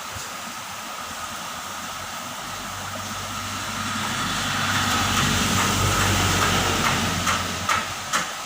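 Heavy rain falling steadily, with a low engine rumble that swells to its loudest about halfway through and then fades, like a vehicle passing. A few sharp knocks near the end.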